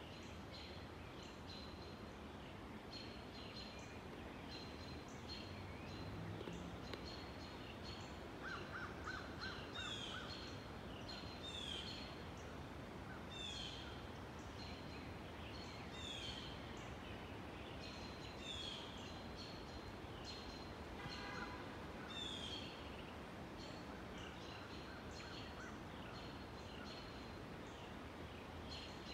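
Woodland birds singing over a steady background hiss: one bird repeats a short, sharply falling note every couple of seconds, among other birds' short chirps and a brief buzzy trill.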